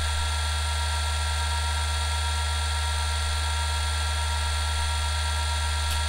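Conner CP30251 hard drive spinning steadily at its 4542 RPM operating speed, idling with no seek clicks: a steady hum under a high whine.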